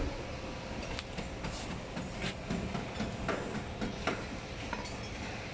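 Steady rumbling background noise of an open-air car workshop yard, with scattered short knocks and clinks, the sharpest about one, two and three seconds in and again near four seconds.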